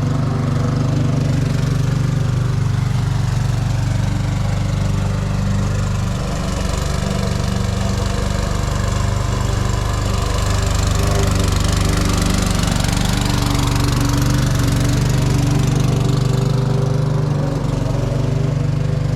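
Briggs & Stratton 450E series single-cylinder lawn mower engine running steadily, with a slight dip in speed about six seconds in.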